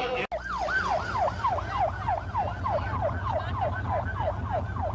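Emergency vehicle siren in a fast yelp, its pitch falling sharply and jumping back up about four times a second, over a steady low rumble. The sound cuts out for a split second near the start.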